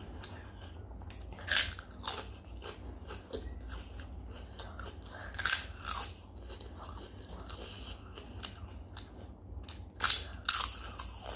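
Biting and crunching into crisp fried papad, in three loud bouts about four seconds apart, with quieter chewing between.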